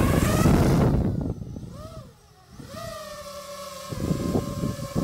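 Small quadcopter drone with standard propellers taking off. A loud rush of propeller noise comes first; the motor pitch wavers and dips briefly about two seconds in, then settles into a steady high buzzing whine as it flies.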